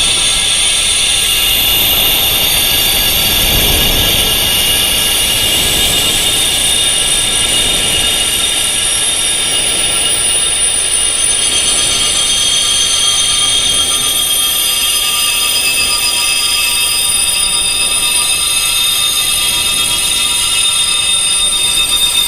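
High-pitched wind chimes, tuned to tinnitus-range frequencies, with many long ringing tones overlapping into a steady shimmer and single tones fading in and out.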